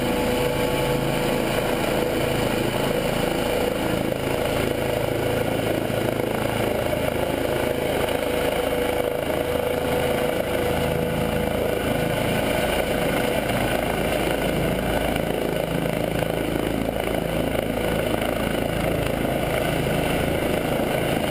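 Air-ambulance helicopter hovering close by while it edges in to land: steady rotor beat and turbine noise, with a steady whine that weakens a little past halfway.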